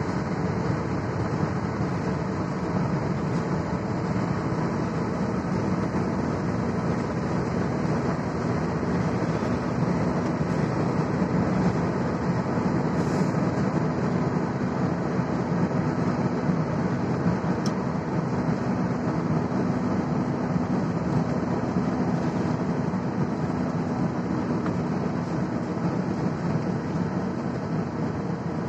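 Steady low rumble of road and engine noise heard from inside a car cabin while driving through a road tunnel, the tunnel walls closing the sound in.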